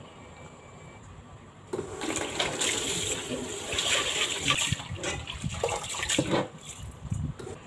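Water sloshing and splashing as hands knead and rinse food in a pot of water in a sink, starting about two seconds in.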